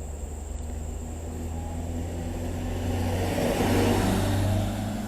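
A car passing by, its engine hum and tyre noise swelling to a peak about four seconds in and then dropping away.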